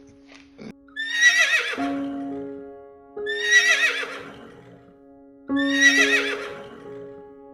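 A horse whinnying three times, about two seconds apart, each a quavering call about a second long, over background music with held notes.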